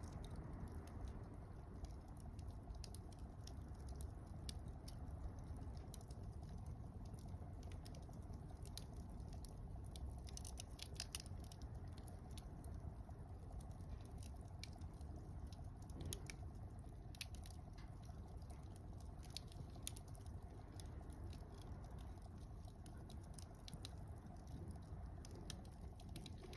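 Faint wood fire of mixed conifer and broadleaf firewood crackling, with irregular small pops over a low steady rush of flames.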